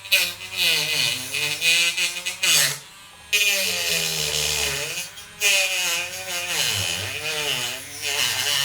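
Proxxon rotary tool cutting into a plastic enclosure. The motor's whine sags and recovers again and again as the cutting wheel bogs under load, with a short pause about three seconds in.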